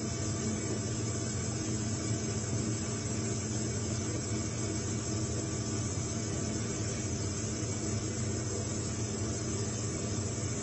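Steady, unchanging machine hum with an even hiss over it.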